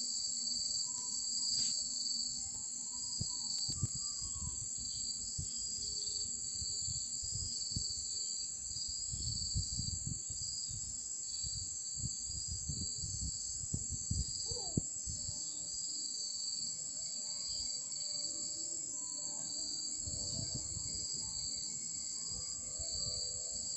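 Night chorus of insects, a steady high-pitched trilling in two layers, one continuous and one pulsing. Low rumbles come and go underneath.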